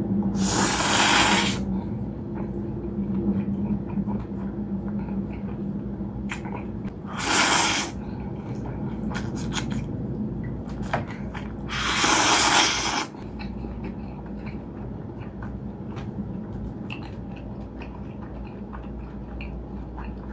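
A person slurps thick, chewy, sauced acorn noodles (Nongshim dotori jjoljjolmyeon) three times, each slurp a loud rush of about a second. Between the slurps there is wet chewing with small clicks.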